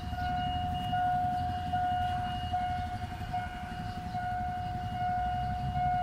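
Railway level-crossing warning alarm sounding a steady high tone that breaks briefly a little faster than once a second, with a low rumble underneath. It signals that the barriers are down for an approaching train.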